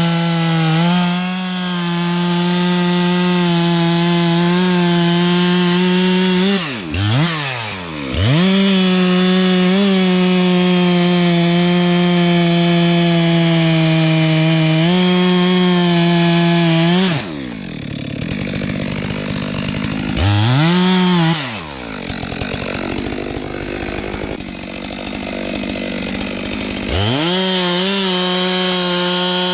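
Stihl two-stroke chainsaw running at high revs while cutting wood, its engine note steady. Twice, about 7 seconds and about 21 seconds in, the revs drop and climb back up quickly. Past the middle, for about ten seconds, the sound is quieter and rougher before the high even note returns near the end.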